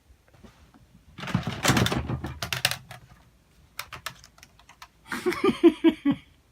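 Plastic LEGO bricks clattering and clicking as they are handled and rummaged. Near the end comes a quick run of short pitched syllables, about five a second, like a child's voice making a sound effect.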